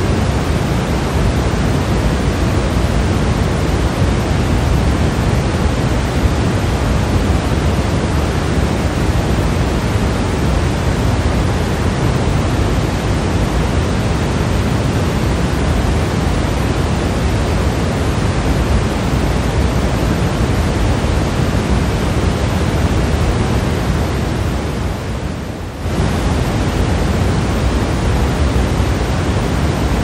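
Steady synthetic pink noise: an even hiss weighted toward the low end. About 25 seconds in it fades slightly for a moment, then snaps back to full level.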